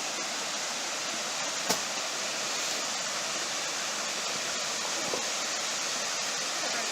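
Waterfall pouring steadily, a constant rushing of falling water, with a single sharp click a little under two seconds in.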